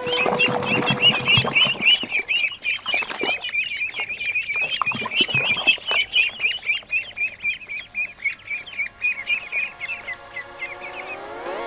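A group of ducklings peeping, a dense stream of rapid high-pitched peeps that thins out after about ten seconds. Rough, noisy sounds come through under the peeps in the first half, and music swells in near the end.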